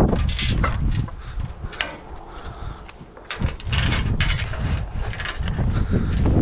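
Footsteps crunching on frozen manure and straw bedding, irregular crackles and scuffs with a low rumble underneath. A wooden knock right at the start comes from climbing over the wooden fence rails.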